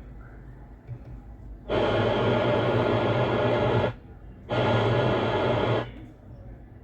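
Car stereo speakers giving out a loud, harsh static-like noise in two bursts, the first about two seconds long and the second about a second and a half, each starting and stopping abruptly.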